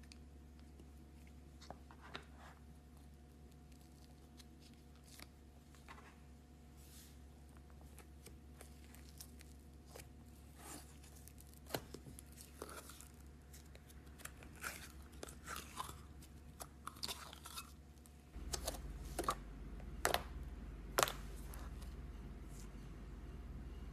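Slime being squeezed and poked by hand, making small crackling clicks and pops: sparse at first, denser and louder from about halfway, with a few sharper pops near the end over a low background hum that gets louder late on.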